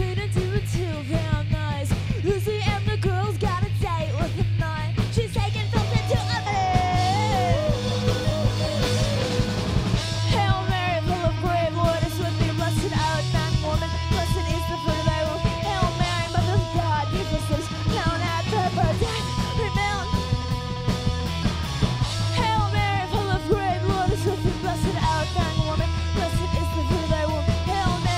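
Punk rock band playing live: distorted electric guitar over bass and drums, with a woman singing in stretches.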